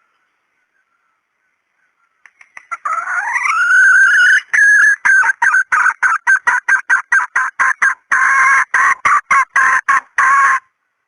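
Junglefowl rooster calling, played as a decoy lure for wild junglefowl. A call rises in pitch about three seconds in, then breaks into a long run of short, choppy repeated notes, several a second, which stop sharply near the end.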